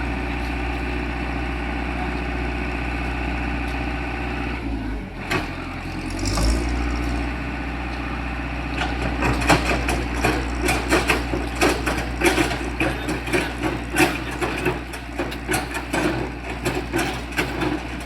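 AJAX concrete mixer's engine running steadily, its note changing about five seconds in. From about nine seconds on, rapid, irregular clattering sounds over the engine.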